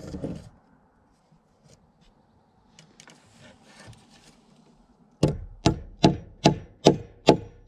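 Claw hammer tapping a small nail through a hiking-stick medallion into a wooden walking stick: six quick, evenly spaced strikes starting about five seconds in, after some light handling and rustling.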